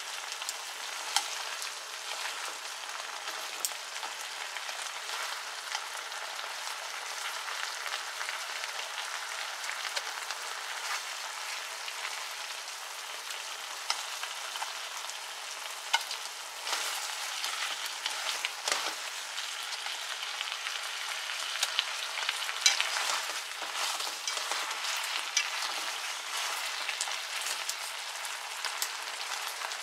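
Sweet soy and sake simmering liquid sizzling and bubbling around chicken wings in a frying pan as it reduces to a glaze, with occasional sharp clicks of chopsticks against the pan as the wings are turned. The sizzle grows louder and more crackly in the second half.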